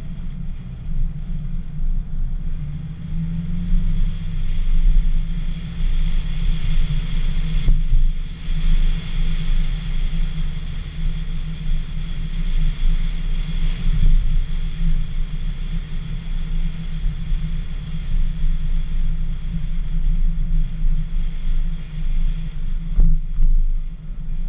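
Low, uneven rumble of wind buffeting an outside-mounted GoPro's microphone while a Dacia Sandero drives slowly through streets, with the car's engine and tyre noise underneath. The rumble eases briefly near the end.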